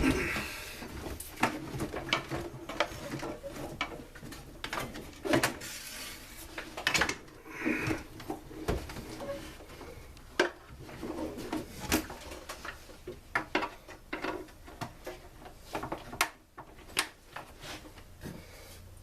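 Tools and parts of a Stihl SR 420 backpack blower being handled during disassembly: irregular clicks, knocks and clinks, with some rubbing and scraping in between.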